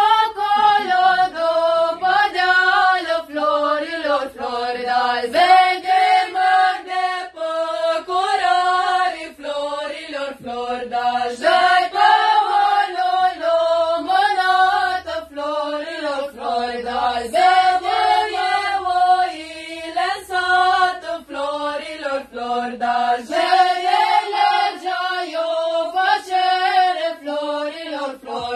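A group of young singers, mostly women's voices, singing a traditional Romanian colind (Christmas carol) together in unison, in long held notes.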